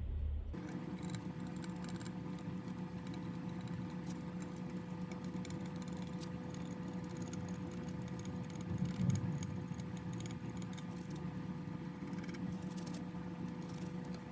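A small electric motor running steadily with a fixed-pitch hum and light ticking, starting about half a second in.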